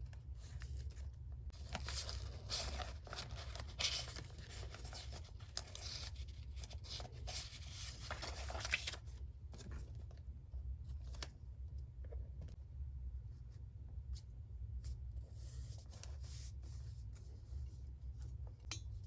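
Paper being worked by hand for a collage: a long scratchy stretch of paper noise from about two to nine seconds in, then scattered light taps and clicks.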